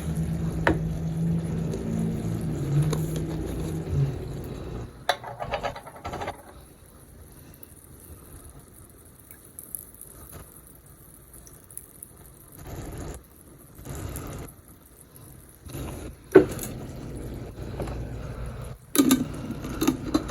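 Kitchen sounds: running water stops about four seconds in, followed by scattered clinks and knocks of pots and utensils.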